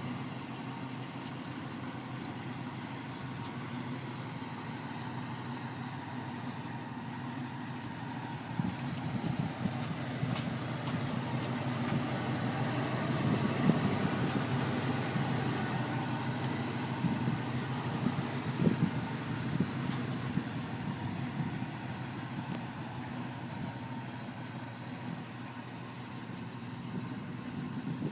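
1956 Chevrolet Bel Air's engine idling steadily, a little louder in the middle, with a short high chirp repeating every couple of seconds.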